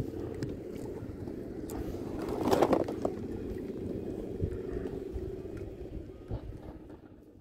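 Wind buffeting the microphone over choppy lake water lapping against an inflatable boat, with one louder rush about two and a half seconds in; it fades near the end.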